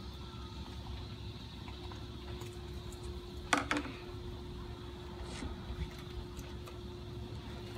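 Steady background rumble with a faint low hum. About three and a half seconds in, a pair of scissors is set down on the tabletop with a short double clack.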